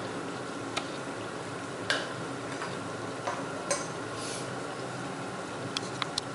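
Scattered light clicks and taps of kitchen utensils, about seven in all, over a steady background hum.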